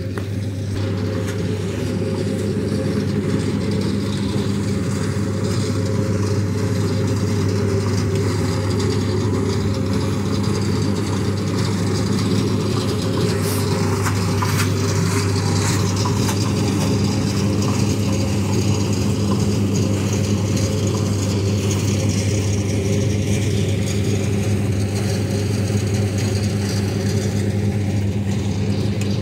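An engine running steadily at an even speed, a constant low hum.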